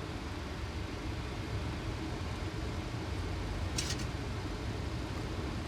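Steady flight-deck noise of a Boeing 737 on final approach: a constant low rumble of airflow and engines. A short burst of hiss breaks in briefly about four seconds in.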